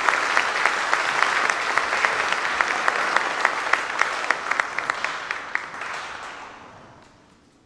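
Audience applauding, with individual sharp claps standing out, thinning and dying away about six to seven seconds in.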